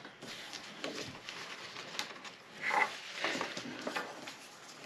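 Light paper-handling sounds: small taps and rustles of paper being positioned and pressed onto a card. One brief, slightly louder sound comes about halfway through.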